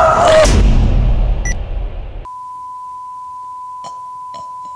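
A loud, noisy burst with a yell in its first half-second dies away over the next two seconds. Then a steady 1 kHz television test tone sounds with the colour-bar test card and holds unbroken, with a few faint clicks under it.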